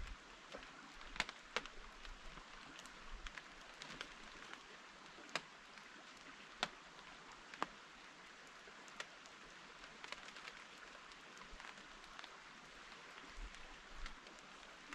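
Light rain falling: a faint steady hiss with scattered sharp taps of single drops at irregular intervals.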